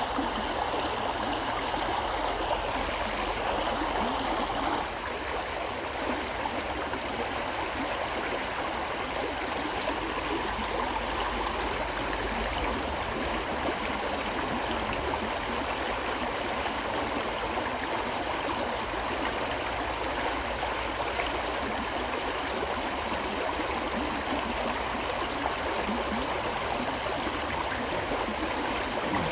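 River water flowing steadily, a continuous rush that eases slightly about five seconds in.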